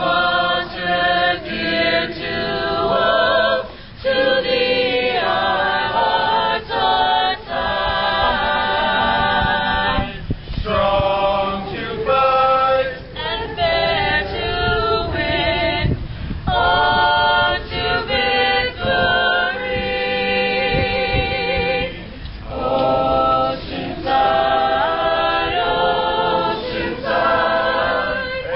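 Small mixed group of male and female voices singing a school alma mater a cappella, in held notes with short breaks for breath between phrases.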